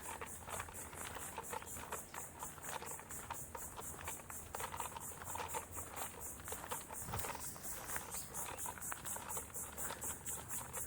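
Insects chirping in a high, steady, evenly pulsed trill, with faint rustling underneath.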